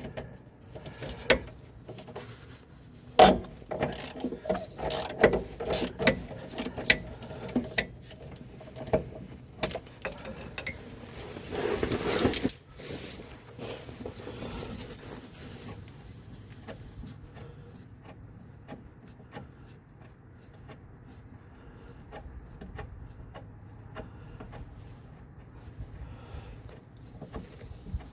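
Socket ratchet clicking and metal tool knocks while shock absorber mounting bolts are worked loose, with a short rasping burst about twelve seconds in, then lighter intermittent ticking.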